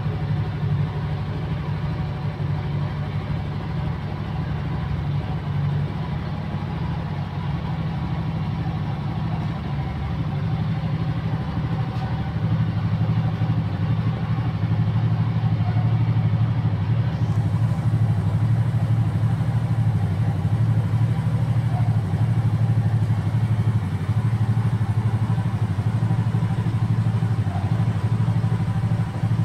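Motorcycle engine idling steadily, growing a little louder about twelve seconds in.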